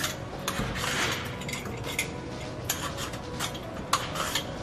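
Hand vegetable peeler scraping the skin off a snake gourd over a stainless steel sink: short, irregular strokes, each with a sharp click.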